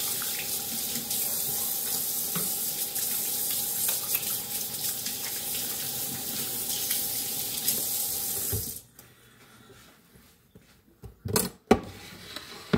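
Kitchen tap running steadily as hands are washed under it, shut off about nine seconds in. Then a few short knocks near the end as the wooden cutting board is picked up.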